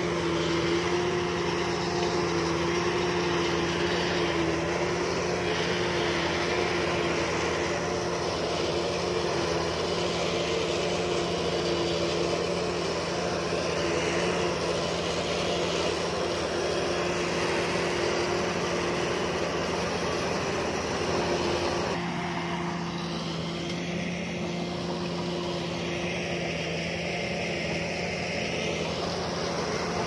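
Heavy construction machine's diesel engine running steadily, a constant droning hum with a noisy mechanical wash over it; the sound changes character about two-thirds of the way through.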